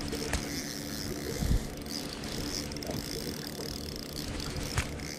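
Spinning reel being wound in on a hooked fish, its gears whirring steadily. A dull knock comes about a second and a half in, and a sharp click near the end.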